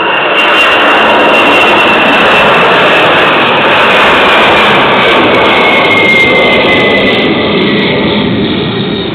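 Boeing 747 freighter's four jet engines at take-off power during lift-off and climb: a loud, steady rumble with a high whine that slowly falls in pitch. The sound eases off a little near the end.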